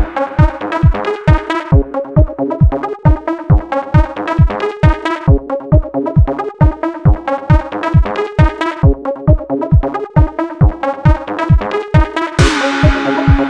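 Electronic dance music with a steady four-on-the-floor kick drum and synthesizer chords.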